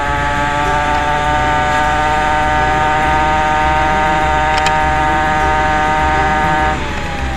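Small gas engine of a gas-converted Razor scooter running at high revs with a steady whine under way, then easing off near the end as the pitch drops.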